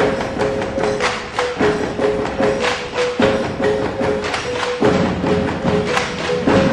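Percussion-led music: rapid struck beats under a repeating two-note figure, each phrase about a second and a half long.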